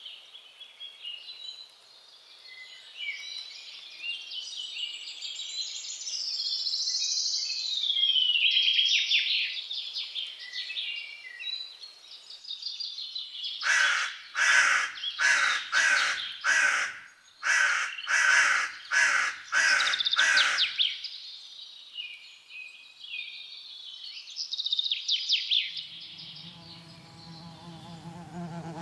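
High chirping and trilling calls, then a run of about a dozen harsh caws from a crow-family bird over some seven seconds, the loudest part, followed by more chirps.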